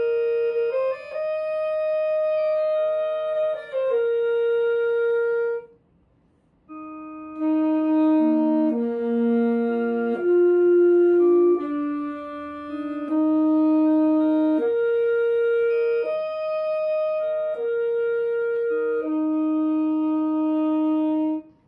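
Solo alto saxophone playing a slow intonation exercise of long, steady held notes, one after another. It plays two phrases, with a short break about six seconds in, and stops near the end.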